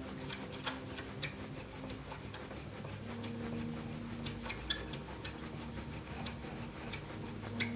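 Brass chronometer wheel being polished on a hand-turned screw head polishing tool: a soft, steady metal-on-metal rubbing with scattered small clicks. Sustained background tones sit underneath, changing about three seconds in.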